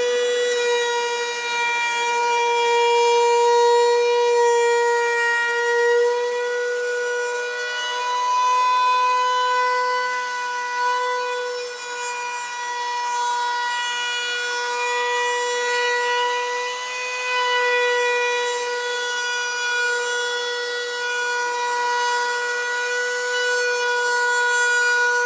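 Router running with a steady high-pitched whine as it cuts the binding channel around the edge of a guitar body in a binding-cutter jig; the pitch wavers slightly now and then.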